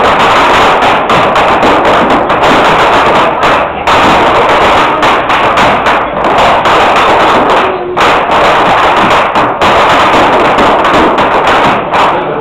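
Traditional Irish dance tune played loud, with the dancers' shoes striking the wooden dance boards in quick rhythmic taps and thuds.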